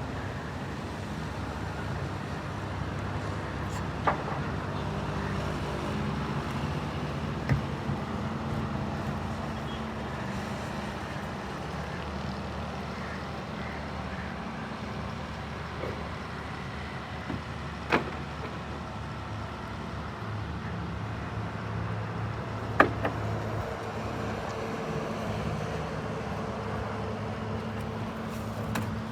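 Doosan DX340LCA excavator's diesel engine running steadily under digging load, its pitch shifting a little as the work goes on. Four sharp knocks are spread through it.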